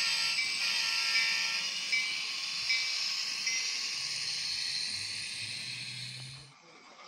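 Sound-equipped model diesel locomotive running, its sound decoder playing a hissing engine sound through a small speaker. Short ringing tones repeat about every three-quarters of a second in the first half. The sound fades out near the end.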